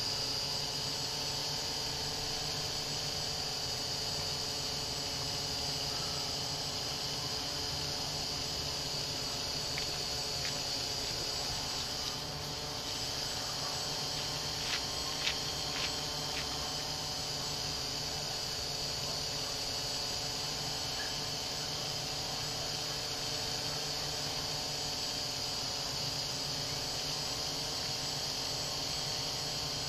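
XAircraft X650 multirotor's electric motors and propellers buzzing steadily as it hovers, a high whine over a lower hum. A few faint ticks about halfway through.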